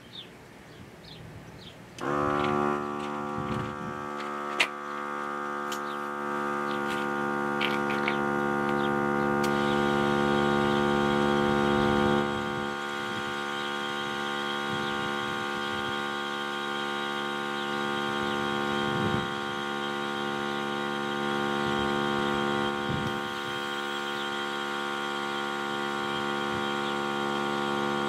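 A Viking portable tire inflator's small electric air compressor starts about two seconds in and runs with a steady, loud hum while it airs up a tire. A higher hiss joins about ten seconds in, as shop-compressor air goes into the front tire through an air chuck.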